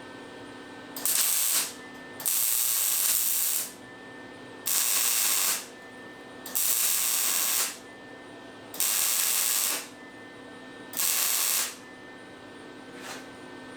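MIG welder laying short welds on a stainless steel base: six bursts of crackling, hissing arc, each about a second or a second and a half long with brief pauses between, filling gaps between the pieces.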